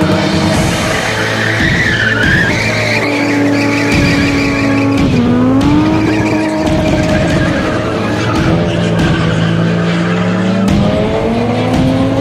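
BMW E30 sedan being spun: the engine is held at high revs with its pitch sliding up and down, and the tyres squeal and skid on the tarmac. The revs dip about five seconds in and climb again near the end.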